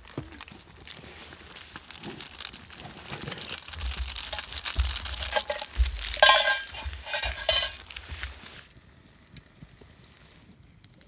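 Metal camp pot and utensils clinking and scraping as food is taken out of the pot, with the loudest ringing scrapes about six to seven and a half seconds in.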